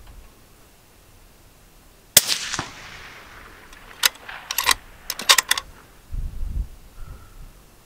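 A single shot from a Ruger American Gen II bolt-action rifle in .223 Remington, loud and sharp with a short echo. About two seconds later comes a quick run of sharp metallic clicks as the bolt is worked to eject the case and chamber the next round, then a few low thumps.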